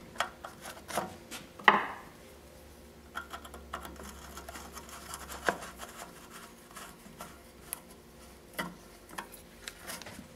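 Plastic air filter cover on a small Briggs & Stratton engine being seated by hand and its centre screw turned with a screwdriver: scattered light clicks, taps and rubbing, with the sharpest knock just under two seconds in.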